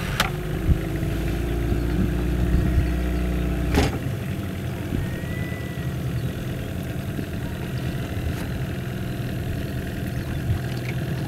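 Small boat's outboard motor running steadily at low revs, with a sharp clunk about four seconds in, after which it carries on at a lower, steadier note.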